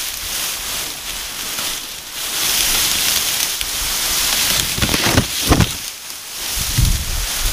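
Steady rustling in dense grass, broken by short, low grunts from wild boar: two about five seconds in and another around seven seconds.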